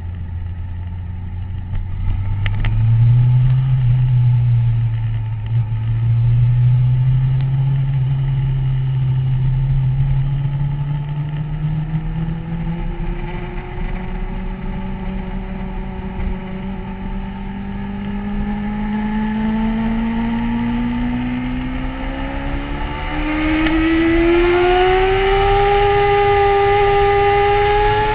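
Motorcycle engine accelerating hard. Its note jumps up about two and a half seconds in, then climbs slowly and steadily for the rest of the ride, over low wind rush. It grows louder in the last few seconds.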